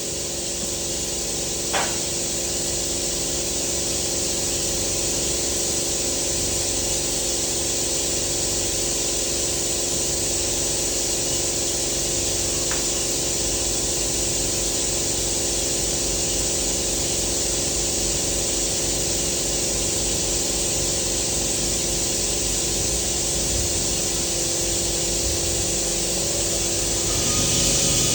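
Welding arc hissing steadily through a long continuous bead, over a steady low hum, with two brief clicks along the way.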